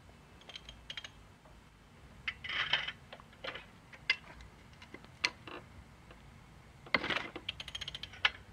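Socket ratchet wrench working the top cap bolt of a Yamaha R3's front fork to loosen it: scattered light metallic clicks and taps, with a quick run of ratchet clicks about seven seconds in.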